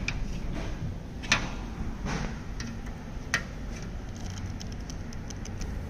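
A few sharp light clicks and taps, about one a second in the first half, from a screwdriver handled against the metal fittings around an autoclave's water pump and solenoid valve, over a low steady hum.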